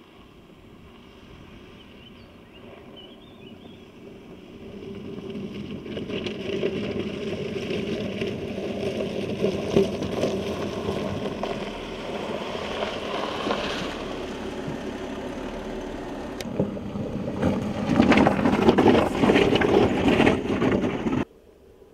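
Audi Q7 SUV crawling over gravel and loose rocks, its tyres crunching and crackling on the stones over the running engine. It gets louder about a quarter of the way in, is loudest near the end, and cuts off suddenly.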